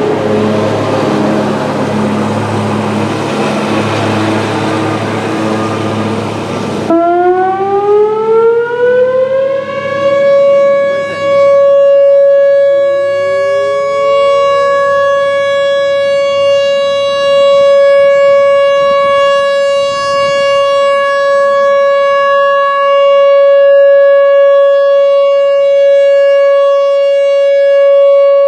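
A noisy hiss with a low hum cuts off suddenly about seven seconds in. Then a Whelen Vortex R4 rotating outdoor warning siren winds up over about three seconds to a steady high tone and holds it as the steady alert signal of a siren test, with a slow rise and fall in loudness. About thirteen seconds in a fainter second rising tone joins briefly.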